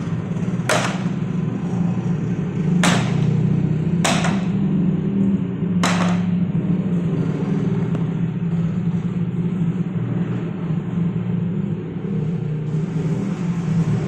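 Machinery running with a steady low hum, with four sharp clacks over the first six seconds.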